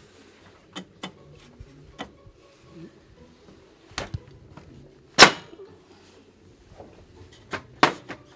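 Irregular wooden knocks and clunks from carpentry work on a window frame, about eight separate strikes. The loudest comes about five seconds in, with a quick pair near the end.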